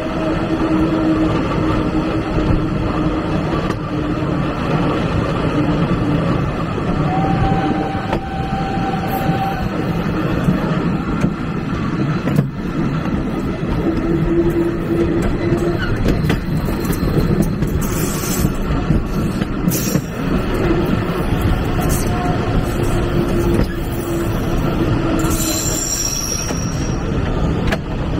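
Railway carriage of a steam-hauled retro train rolling steadily along the track, its wheels running on the rails. A few brief high-pitched squeals come in the second half.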